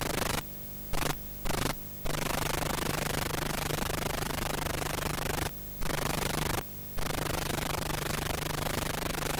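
Steady hiss and static with a low hum from a blank stretch of videotape being played back. The noise cuts out briefly five times: three quick dropouts close together about half a second in, and two more a little past the middle.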